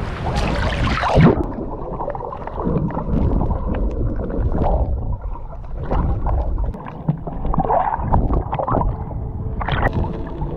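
Water sloshing and gurgling around a microphone that goes underwater about a second in, so the sound turns sharply muffled and low, with swells of bubbling.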